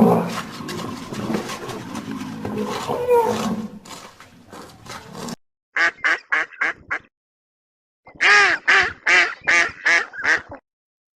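A loud, rough stretch of sound that cuts off suddenly about five seconds in, then short, repeated animal calls in two quick runs: about six, a pause, then about eight more.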